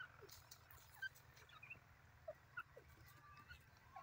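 Near silence, with faint, scattered short bird chirps and peeps and a few soft ticks.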